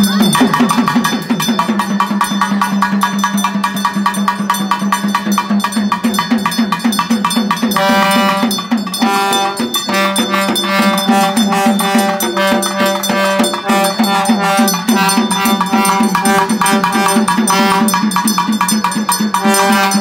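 Live festival percussion: fast, steady hand-drumming with a clanging metal beat. Under it runs a held drone, and about eight seconds in a melody of long held notes comes in.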